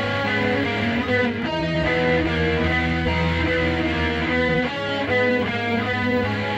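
Recorded music led by guitar, picking a line of notes that change several times a second over steady low bass notes.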